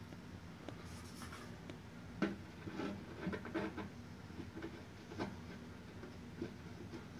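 Faint scraping and irregular small clicks of a hand screwdriver turning screws into a flat-pack desk panel, busiest from about two to five seconds in.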